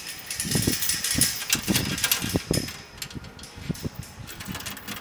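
Sheet-metal panels being handled, with irregular knocks, clatter and rustling, busiest in the first three seconds and sparser after.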